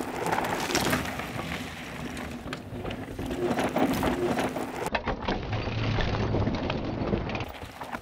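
Downhill mountain bike ridden fast on a dry dirt trail: tyres skidding and crunching over loose dirt and rock, with many sharp clicks and knocks from the bike. The sound changes abruptly about five seconds in and again near the end.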